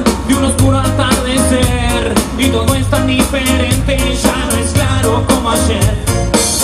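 A Latin rock band playing live: a full-band song over a steady drum beat, with a singer's voice on top.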